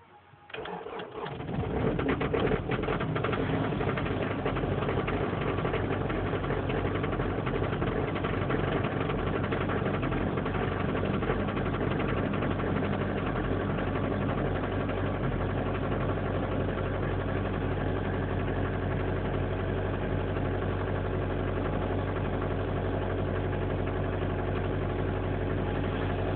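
An engine starting about half a second in, then running steadily.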